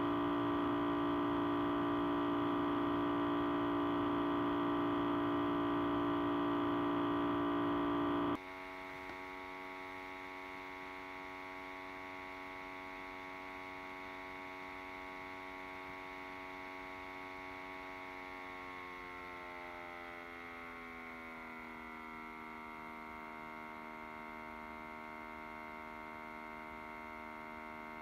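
Audio feedback drone: a loud, steady cluster of many held tones that cuts off abruptly about eight seconds in. A quieter drone of held tones replaces it, and its tones slowly slide downward a little past halfway and then settle.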